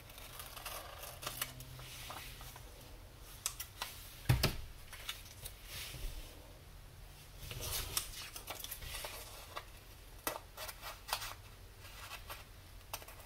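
Small scissors snipping through glossy magazine paper, with scattered short snips and paper rustles and one louder sharp click about four seconds in.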